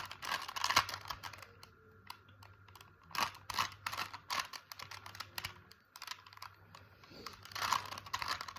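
Plastic Rubik's Cube layers being twisted by hand, clicking and rattling in quick runs of turns with short pauses between.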